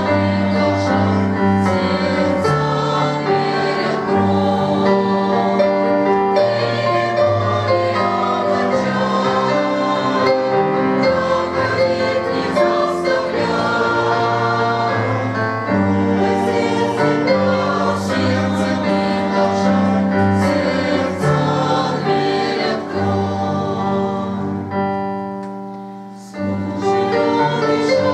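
Church choir singing a hymn in several parts, with long held chords; the sound fades away about 25 seconds in and the singing comes back in about a second later.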